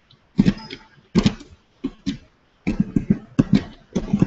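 Irregular clicks and taps at a computer, about a dozen over four seconds, some in quick pairs.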